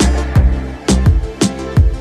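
Background music with a steady beat: a kick-drum and percussion hit about twice a second over sustained instrumental tones.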